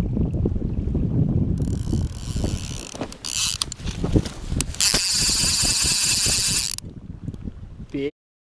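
Baitcasting reel on a catfish rod in a rod holder, its clicker ratcheting in three spurts, the longest about two seconds, after a low rumble at the start.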